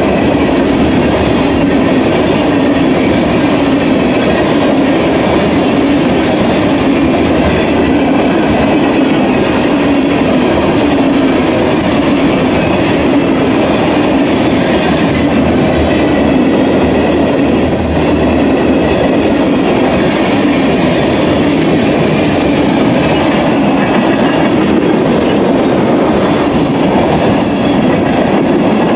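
Empty railroad tank cars of a freight train rolling past, a steady, loud rumble and rattle of steel wheels on the rails.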